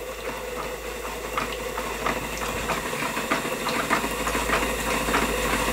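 Stuart Turner 10H model steam engine running under steam, driving a plastic beam engine water pump by belt: a steady hiss with regular light clicks, slowly growing louder.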